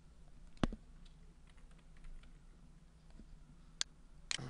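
A few separate, sharp keystrokes on a computer keyboard, the loudest under a second in and two more near the end, with fainter clicks between them.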